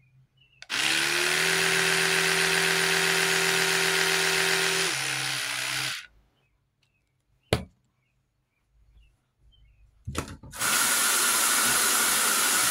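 An electric toothbrush buzzes steadily for about five seconds, its pitch dipping slightly just before it stops. A single click follows, and then a tap runs with a steady hiss for a few seconds near the end.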